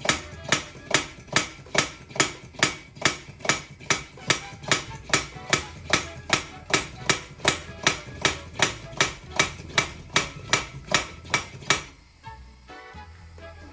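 Sharp, evenly spaced knocks, about two and a half a second, stopping abruptly near the end, over background music.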